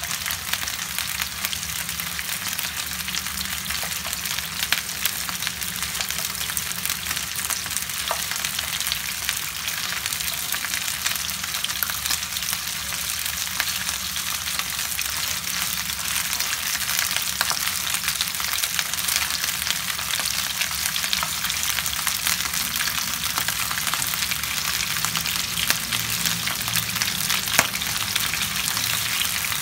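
Raw chicken pieces sizzling in hot oil in a frying pan: a steady hiss with scattered crackling pops of spattering oil, while a plastic spatula stirs and turns the pieces against the pan.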